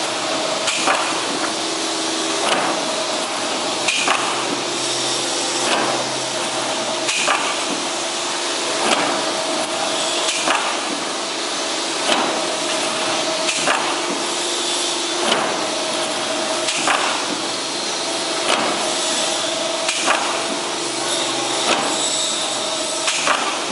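CNC plate shearing machine with a servo front feeder, repeatedly cutting steel plate: a sharp bang about every one and a half seconds as the blade comes down, over steady machine noise.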